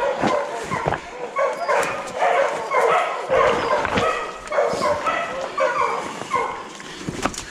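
Bear hounds baying repeatedly at a treed black bear, calls coming several times a second and overlapping. Sharp crackles of brush and footsteps on the slope are mixed in.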